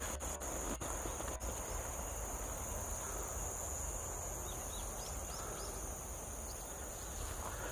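Steady, high-pitched drone of insects singing in the fields, with a low steady rumble underneath.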